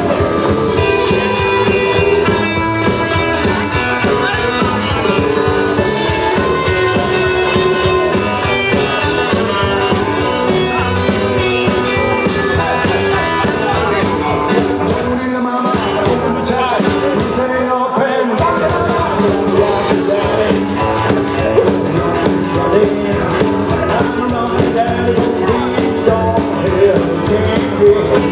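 Live rock and roll band playing loud, with electric guitar, electric bass, drum kit and singing, heard from within the audience. The low end drops out briefly twice about halfway through.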